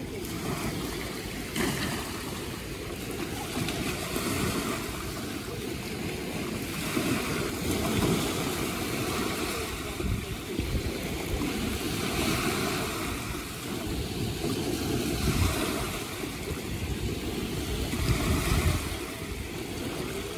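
Ocean surf washing on a beach, swelling and easing every few seconds, with wind on the microphone.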